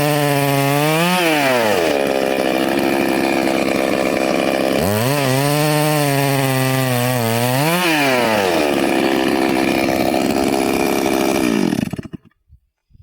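Petrol chainsaw cutting wood. The engine revs high, then drops to a lower, labouring pitch as the chain bites into the wood; this happens twice. The sound cuts off suddenly near the end.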